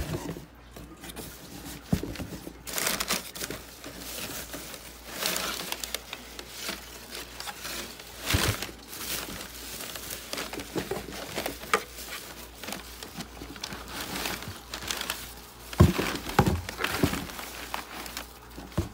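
Bubble wrap crinkling and rustling in irregular bursts as it is pulled off a hard plastic prop, with a few sharper knocks.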